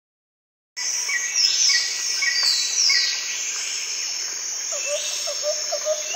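Outdoor insect and bird chorus starting about a second in: a steady high insect drone with short falling bird calls repeating about twice a second, joined about five seconds in by a quick run of lower chirps.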